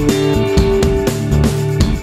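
Background music: guitar with a steady drum beat.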